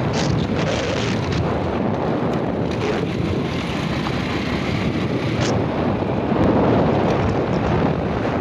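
Wind buffeting a phone's microphone on a moving motorcycle, a steady rush of noise, with the motorcycle's engine running underneath.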